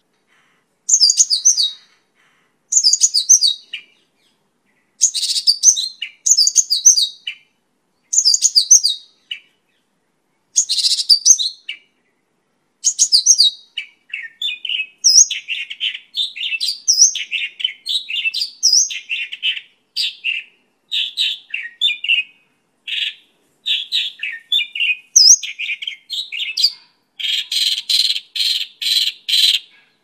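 Mongolian lark singing: short phrases of rapid high notes every couple of seconds, which from about halfway run together into a continuous stream of varied chirps and whistles, ending in a fast run of evenly repeated notes.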